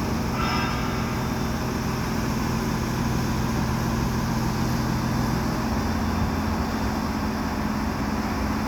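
Mobile crane's diesel engine running steadily with a low, even hum, its note shifting slightly about six seconds in. A brief higher-pitched sound comes just after the start.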